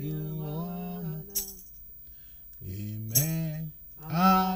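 Voices singing a slow worship chorus in long held, sliding notes, with a pause of about a second in the middle. Brief bright accents fall on a few of the notes.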